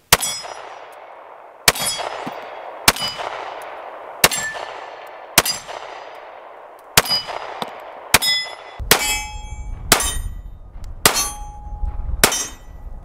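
Pistol shots from two Springfield Armory 1911s. The first is a stainless Garrison with a 4.25-inch barrel in .45 ACP, fired seven times at a slow steady pace with a short ringing after each shot. After that, four shots from a black Emissary 4.25-inch with wind rumbling on the microphone.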